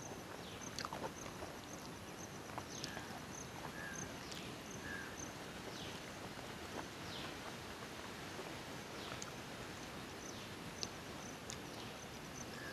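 Quiet rural ambience of birds and insects: a short high chirp repeating a little slower than once a second, with faint short falling calls now and then.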